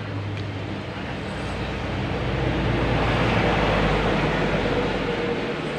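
A passing motor vehicle: a rumble that swells to its loudest about three to four seconds in and then fades away.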